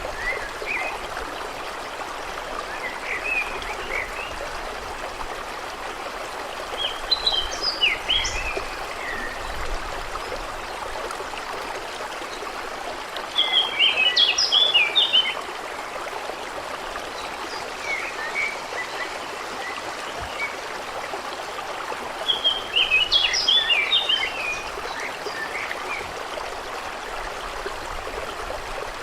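A stream running steadily, with a songbird singing three loud, quick, chattering phrases and a few softer chirps in between.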